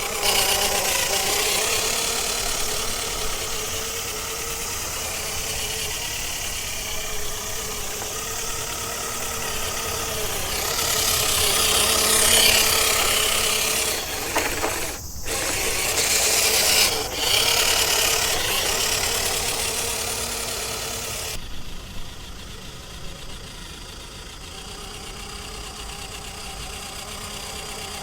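WPL C34 RC car running over rough ground: a steady electric motor and gear whine with rattling from the body and suspension. It grows louder and harsher about halfway through, then the high end drops away suddenly about three-quarters of the way in and it runs on quieter.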